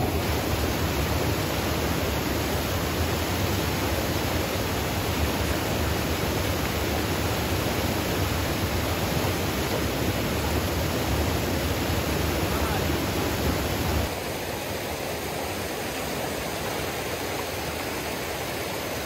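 Creek rapids in high water, a steady rush of water. About fourteen seconds in it drops suddenly to a quieter, thinner rush with less low rumble.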